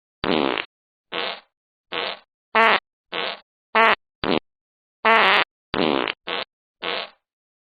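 Electronic fart noise maker playing fart sounds: about eleven short blasts in a row, each under half a second, some with a wavering pitch, separated by dead silence.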